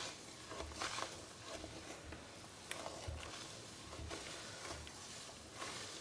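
Wooden spoon stirring liquid soap in salt water in a stainless steel pot: faint sloshing, with a few small clicks of the spoon against the pot. The soap is starting to separate into curds in the brine.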